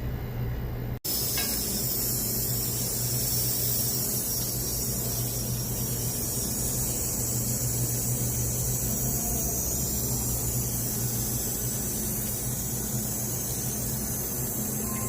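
Steady hiss of pressurized gas over a low, steady hum. The hiss comes in abruptly about a second in.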